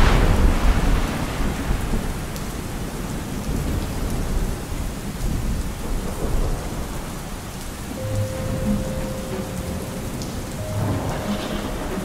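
Thunder cracking at the start and rolling off into steady rain, with low rumbling throughout.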